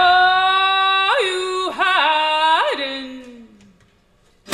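A song played back through a hi-fi system's loudspeakers: a lone singing voice holds long notes with quick upward flips in pitch, the last note sliding down and fading out about three-quarters of the way through. A strummed chord starts right at the end.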